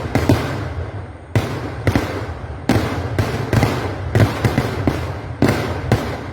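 Kerala vedikettu fireworks going off in a rapid barrage: sharp explosions in quick succession, often several a second, each trailing off in echo. There is a brief lull about a second in.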